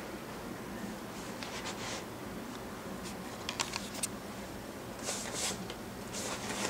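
Soft rustling and scraping with a quick run of light clicks about three and a half seconds in, over a steady low hum.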